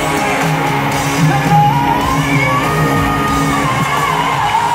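Live pop music in an arena heard from among the audience: a female lead vocal with the band over a heavy bass, with crowd shouts. A held high note steps up in pitch about a second and a half in and comes back down near the end.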